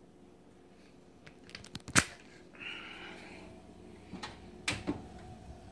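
Handling noise as a camera is picked up and carried: a sharp click about two seconds in, a short rustle, then a few lighter knocks near the end, over a faint steady hum.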